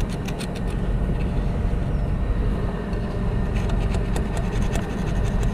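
Steel piston rod of a backhoe hydraulic cylinder sliding and scraping in its barrel as it is handled, giving scattered clicks and scrapes over a steady low drone.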